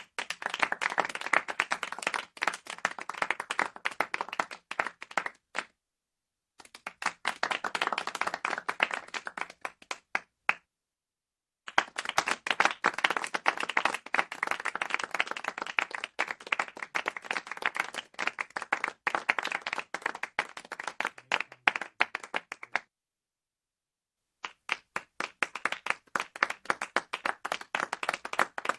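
Small crowd clapping sparsely and a little awkwardly, in four short rounds of applause that each stop abruptly, with silent gaps between them.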